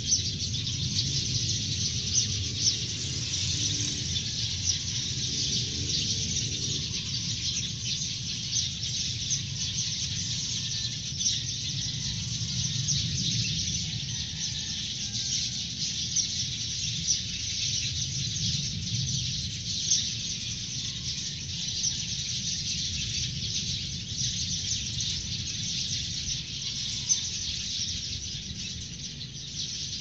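Dawn chorus: many birds chirping and twittering together from the trees, a dense, unbroken stream of short, high calls. A steady low rumble of background noise runs underneath.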